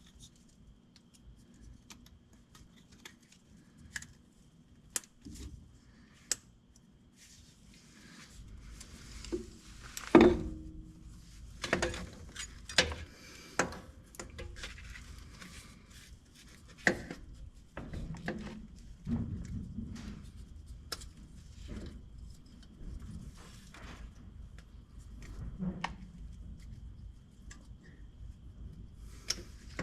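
Hand tools and metal parts clinking and clanking while a starter is fitted to a pickup truck: scattered light clicks, with a few louder clanks in the middle.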